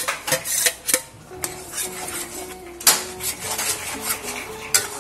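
Metal spatula scraping and clinking against an aluminium kadai while stirring a wet chhena-and-milk mixture, with a steel bowl clanking on the pan's rim in the first second as the last chhena is tipped in.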